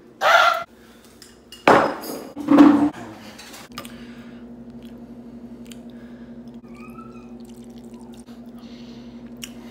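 Ceramic bowl and dishes handled, with a few short clatters in the first three seconds. A steady low hum then sets in and continues.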